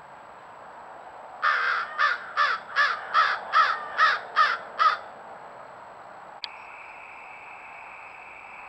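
American crow cawing, about nine loud caws in quick succession, the first one drawn out. After a click, a steady high drone takes over.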